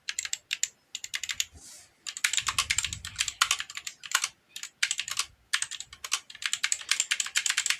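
GK61 60% mechanical keyboard being typed on in rapid runs of key clacks, with a brief pause about two seconds in.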